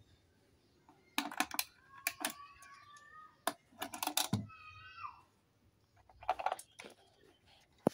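Plastic engine-oil jug and bottle funnel being handled at the end of an oil fill: a series of light plastic clicks and knocks in several clusters, with a few short squeaks, one of them falling, about four and a half seconds in.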